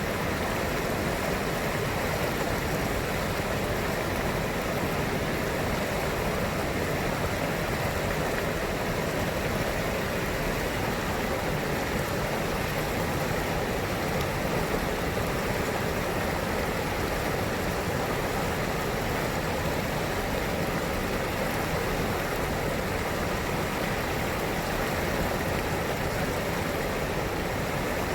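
Steady rush of flowing river water, an even, unbroken wash of sound.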